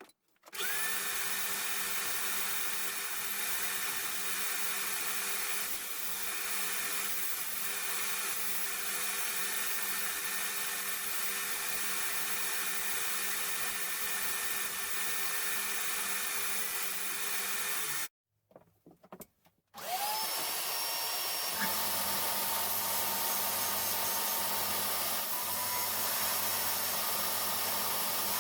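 An electric power drill runs at steady speed for about seventeen seconds and then cuts off. After a couple of seconds of small knocks, it starts again with a rising whine as it spins up and runs steadily.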